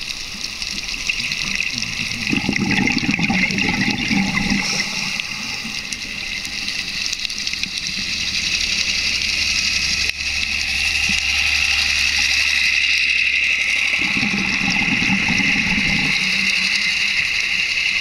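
Underwater sound through a dive camera: a scuba diver's exhaled bubbles rushing past in two spells, a couple of seconds in and again near the end, over a steady hiss.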